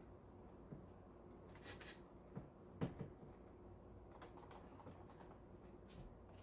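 Near silence with a few faint scattered taps and knocks, one somewhat louder knock about three seconds in.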